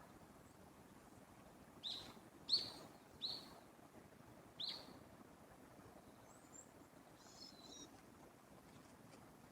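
A bird calling outdoors: four short, sharp, high calls about two to five seconds in, followed by a few fainter chirps, over a quiet steady background hiss.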